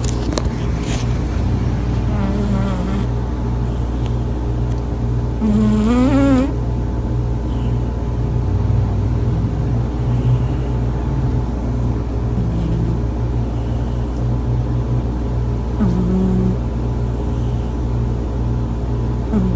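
A sleeping cat snoring: a steady low rumbling drone, with a short squeaky, whistling note on the breaths about every three to four seconds. About six seconds in, one breath rises into a longer, high whine.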